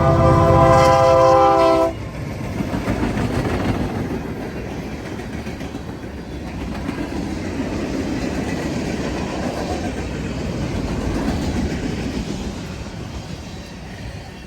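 Train horn sounding a steady chord, cutting off sharply about two seconds in. Then the rumble and clickety-clack of the train rolling past on the rails, slowly fading near the end.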